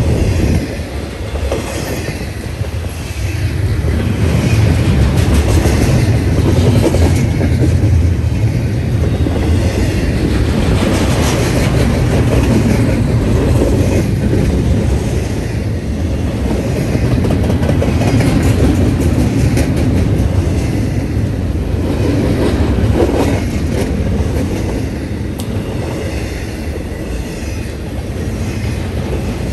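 A Norfolk Southern intermodal freight train's double-stack container well cars rolling past, a loud steady rumble with the repeated clack of wheels over the rail joints.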